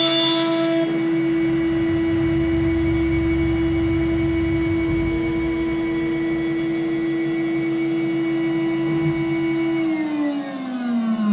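CNC router spindle cutting gasket material with a steady high whine. About ten seconds in it winds down, the pitch falling as the spindle slows at the end of the cut.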